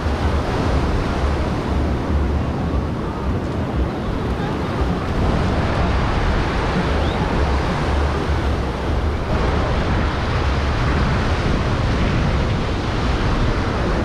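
Ocean surf washing onto a beach, with wind buffeting the microphone as a constant, gusty low rumble.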